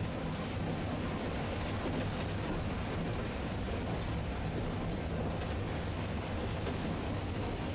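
Tosaden streetcar running by on a wet street: a steady low rumble, with faint scattered ticks over it.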